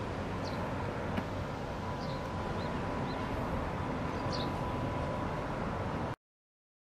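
Outdoor city ambience: a steady low hum of traffic with a few short bird chirps. The sound cuts off abruptly near the end.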